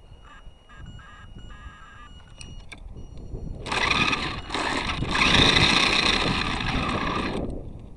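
Electric motor and gear drive of a Revell Lion 4x4 RC car, heard from on board. At first there are only light clicks and quiet whirring. About three and a half seconds in, it breaks into a loud, rushing whine at speed, which cuts off shortly before the end.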